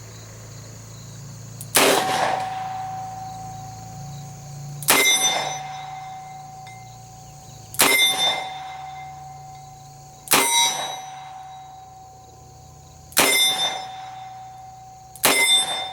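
Six shots from a Smith & Wesson Model 624 .44 Special revolver, fired slowly at two to three seconds apart. Each is a sharp crack followed by a ringing tail. The loads are warm 240-grain jacketed hollow points.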